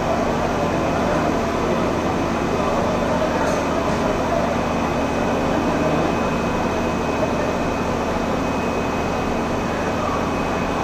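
Fire engine running steadily, a constant mechanical drone with a steady hum.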